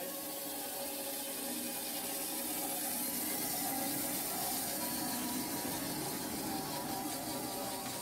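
Portable band sawmill running, its blade cutting lengthwise through a pear log: a steady whirring hiss with a steady hum underneath, a little louder in the middle of the cut.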